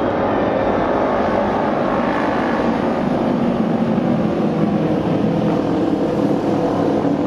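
Several Japanese auto race motorcycles, 600 cc two-cylinder racing engines, running at speed around the oval track as a loud, steady engine drone.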